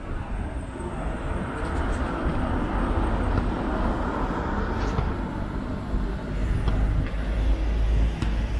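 Steady outdoor traffic-like noise with a low rumble that grows louder in the second half.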